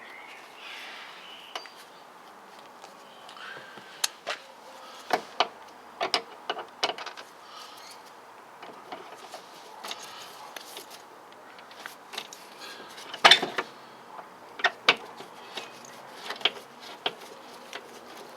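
Irregular metallic clicks, taps and rattles of a Torx driver and loose hardware against the metal of a car door's inner frame and window regulator, as the glass clamp screws are worked loose. The loudest clatter comes about two-thirds of the way through.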